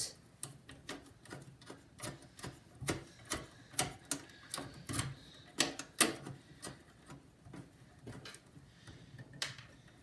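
Irregular light clicks and taps, about two a second, of hands working inside a desktop PC case among the cooler, cables and plastic parts, pushing a part into place. The clicks pause briefly in the later part, and a couple more come near the end.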